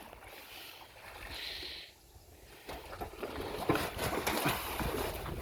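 Handling noise as part of a jet boat is lifted and shaken, with scattered light clicks and knocks from about halfway through: a small loose part rattling about inside.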